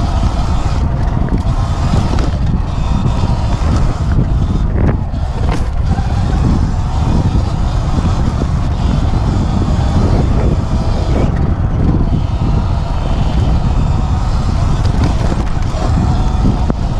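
Sur Ron X electric dirt bike ridden along dirt singletrack: a steady heavy rumble of wind buffeting the helmet-mounted microphone over the bike's motor and tyre noise, with a couple of sharp knocks about five seconds in.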